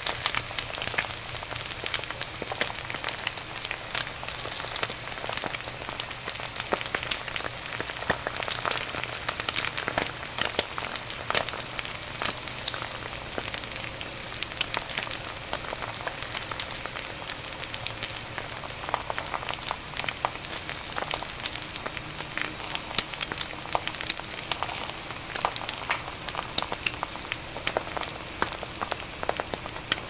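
Egg frying in a frying pan: steady sizzling with many small pops and crackles.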